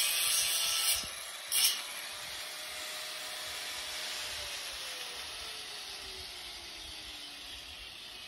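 Angle grinder disc on steel, a loud hiss for about the first second, then a short burst of grinding. After that the grinder runs free and winds down, its whine falling slowly in pitch.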